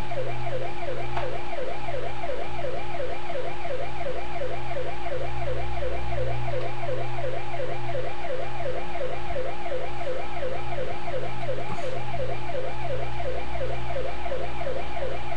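Electronic police siren from a Power Wheels Dodge Charger toy police car's speaker, a fast yelp rising and falling about three times a second over a steady hum, cutting off near the end.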